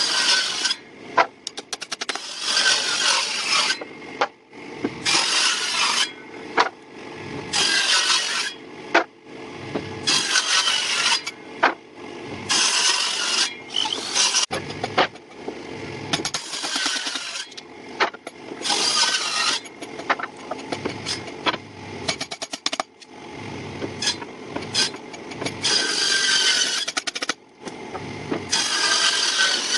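A hand tool scraping over wood in repeated rough strokes, roughly one every second or so with brief pauses between, as in rasping or hand sanding, with a few sharp clicks between strokes.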